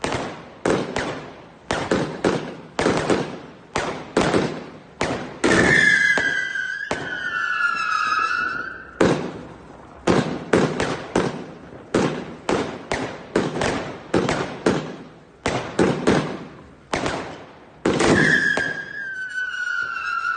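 Fireworks going off in a steady run of bangs, about one a second, each dying away quickly. Twice, about five seconds in and near the end, a long whistle slides slowly down in pitch over the bangs.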